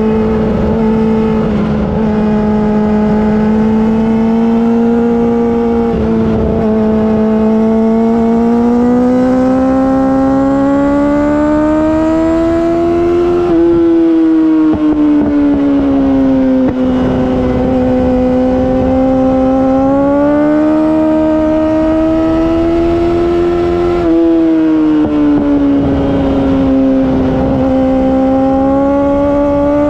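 2019 Yamaha R6's inline-four engine through an Akrapovic Evolution Racing exhaust, heard onboard while riding at steady high revs. Its pitch rises and falls slowly with the throttle through the bends, and drops suddenly at gear changes about halfway through and again near the end.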